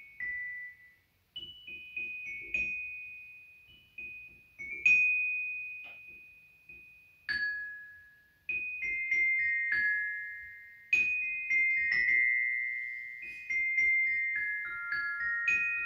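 Glockenspiel played with two mallets: a slow melody of single struck metal bar notes, each ringing and fading out. There are short pauses about a second in and near the middle, and a run of falling notes near the end.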